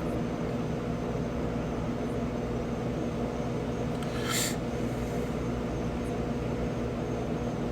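A steady mechanical hum with several fixed tones, and one short hiss about four and a half seconds in.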